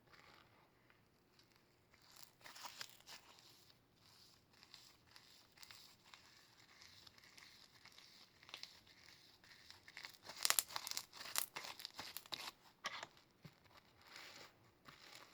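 Clear slime packed with glitter and mixed-in add-ins being squeezed and kneaded by hand, giving irregular crackly crunching sounds. The crunching grows denser and louder about ten seconds in, then eases off.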